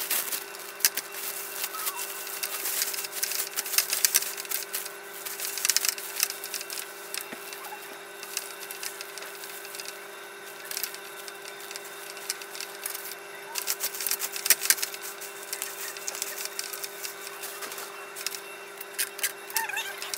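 Clear cellophane wrap crinkling and crackling in bursts as it is gathered and handled by hand, over a steady faint hum.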